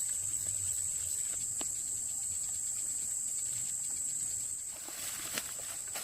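Insects buzzing in a steady, high-pitched drone outdoors, with a few faint clicks and rustles toward the end.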